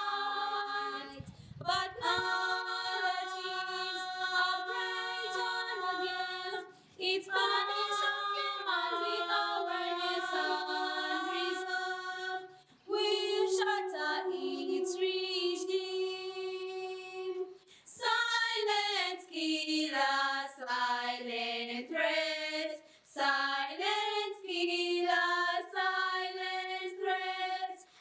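A small group of girls singing a cappella together, unaccompanied voices in phrases with long held notes and brief pauses between phrases.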